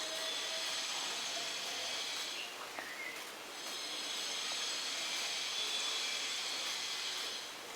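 Food frying in hot oil in a pan, a steady sizzling hiss that swells twice, the second stretch longer.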